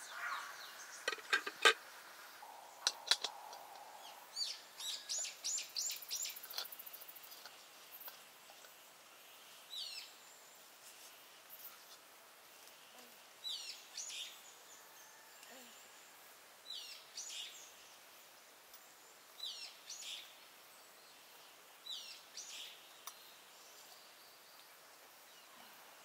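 A bird calling again and again, a short downward-sliding call every three seconds or so, after a quick run of chirps about five seconds in. In the first couple of seconds, a few clinks and knocks of a steel cup and coffee dripper being handled.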